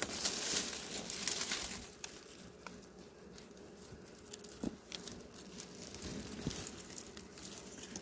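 Dry grass and dead leaves rustling and crackling as they are brushed through. It is loudest in the first two seconds, then quieter with a few scattered snaps of twigs and stems.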